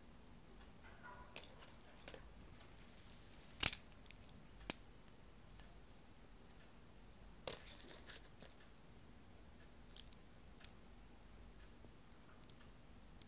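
Small plastic building bricks clicking and snapping together as a toy robot figure is put together by hand: scattered sharp clicks, the loudest about three and a half seconds in, with a quick cluster of small clicks around eight seconds.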